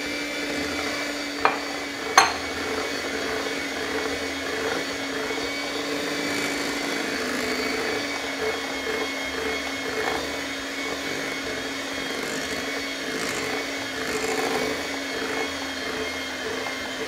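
Electric hand mixer running steadily with a constant motor whine as its beaters mix flour into cake batter in a glass bowl. Two sharp knocks sound about two seconds in.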